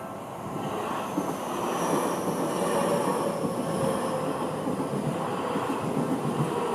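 Seibu Ikebukuro Line electric train running through the level crossing, its noise growing louder about half a second in and then holding steady, with a faint high whine that falls slowly in pitch.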